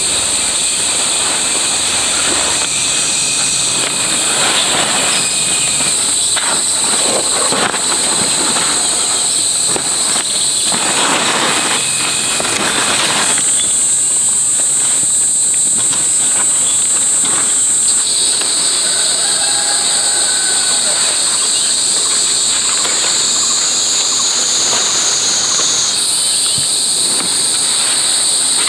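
Insects droning loudly and steadily at a high pitch, the drone shifting in pitch a few times, with rustling now and then, loudest about eleven to thirteen seconds in.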